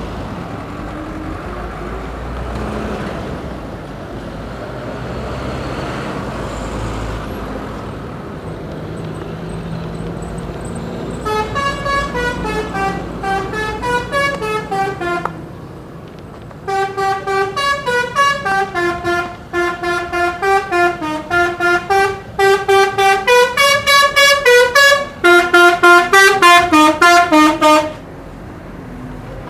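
A bus engine rumbles for about ten seconds. Then the bus's telolet horn, a set of electrically switched multi-tone air horns, plays a fast melody of short pulsed notes stepping up and down, in phrases with brief pauses between them.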